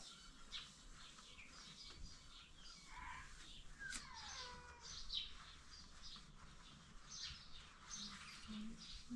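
Birds chirping faintly: many short, high chirps, with a couple of falling notes about three to four seconds in.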